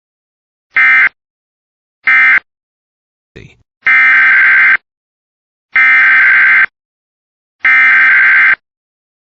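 Emergency Alert System SAME digital data bursts, harsh buzzy screeches. Two short end-of-message bursts come about a second apart, then a brief click. From about four seconds in, three longer header bursts follow, about two seconds apart, announcing the next alert.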